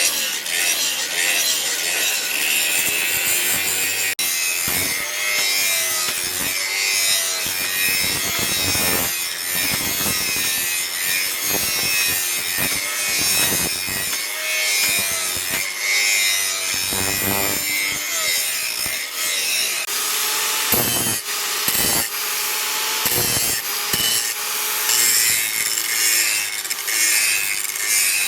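Steel of a leaf-spring knife blank being abraded, a continuous rasping scrape with irregular strokes.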